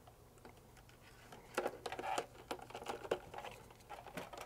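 Faint, irregular light clicks and rustles of a hand handling the plastic front panel and housing of a Rain Dial irrigation controller, beginning about a second and a half in.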